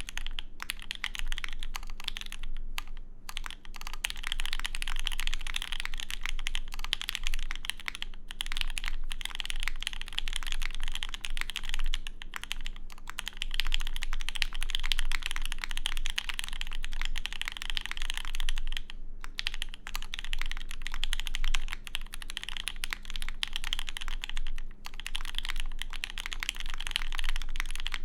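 Duck Orion v3 custom mechanical keyboard with lubed H1 switches on a polycarbonate plate, typed on fast and continuously: a dense stream of keystrokes, with a few brief pauses.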